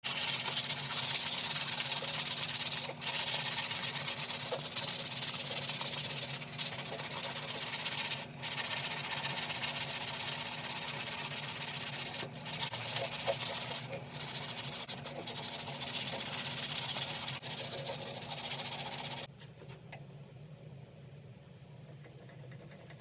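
Power sander running, a steady hiss over a low motor hum. It lifts off the work briefly several times and stops a few seconds before the end.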